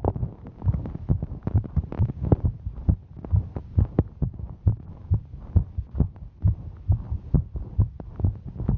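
A woman's heartbeat, a quick, even run of soft low thumps, about two to three a second. The rate is that of a heart raised by the exertion of hiking.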